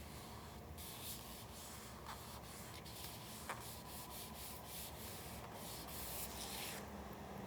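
Paper being handled, a run of dry rubbing and rustling strokes, with one sharp tick partway through.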